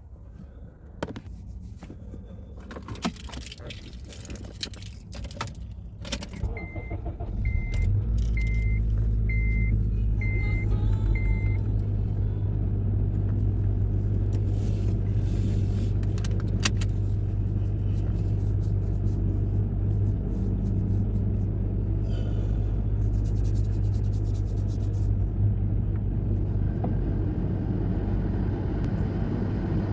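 Car keys jangling, then a car's warning chime beeping six times while the engine starts about seven seconds in and settles into a steady idle.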